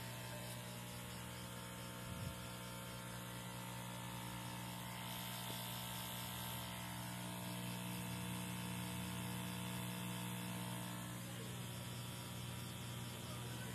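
Steady low electrical hum and buzz from a homemade pure sine wave inverter and its toroidal transformer running. There is one brief click about two seconds in.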